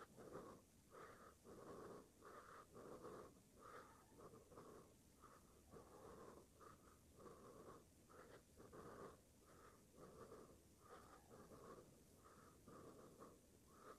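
Near silence: faint room tone with soft, irregular sounds.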